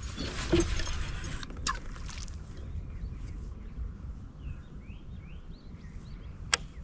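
Birds chirping faintly in short calls through the middle, over a low steady rumble, with a brief hiss at the start and a sharp click near the end.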